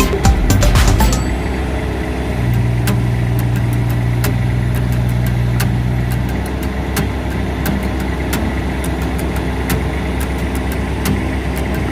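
Backhoe's diesel engine running steadily, with scattered sharp clicks and ticks over it.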